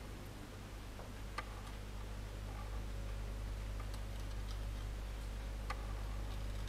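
Faint, irregular small clicks of metal reverse-action tweezers handling fine rigging thread, two of them a little sharper, over a steady low hum.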